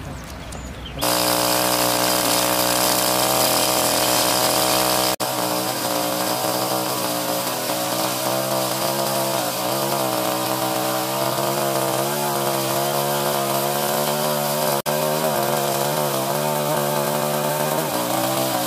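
Chainsaw with a carbide-tipped (TCT) chain opening up to full revs about a second in and cutting through a log driven with nails, the engine pitch wavering under load. The sound cuts out for an instant twice.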